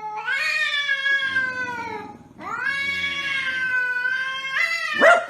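A domestic cat yowling: two long, drawn-out calls of about two seconds each, with a short gap between them, then a brief sharp noise right at the end.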